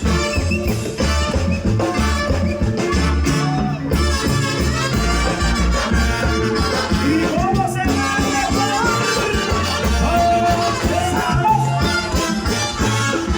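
Latin dance orchestra playing an instrumental passage live: a melody line over a steady bass beat and shaken percussion.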